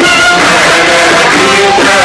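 Loud music: a song with instrumental accompaniment.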